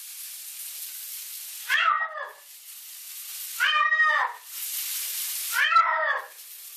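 Bengal cat yowling three times, about two seconds apart, each call rising and falling in pitch, over the steady hiss of running shower water: the cat is upset at being in the shower.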